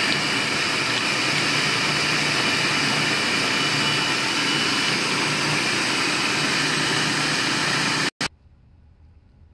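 Electric food processor running at full speed, its blade chopping kale with other vegetables in a plastic bowl, a loud steady motor whine. It cuts off suddenly about eight seconds in, with one brief pulse just after.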